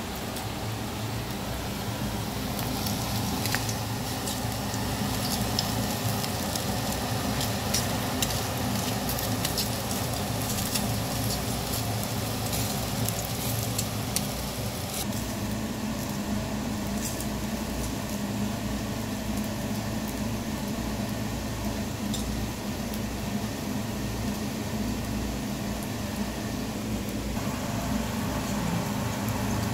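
Eel fillets and a tin dish of garlic in oil sizzling on a charcoal grill, with a scatter of small crackles and pops, thickest in the first half. A steady low hum runs underneath.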